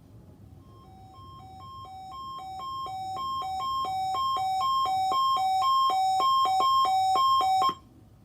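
Electronic alarm beeping in two alternating tones, low and high. It starts faintly about a second in, grows steadily louder and faster, and cuts off abruptly near the end.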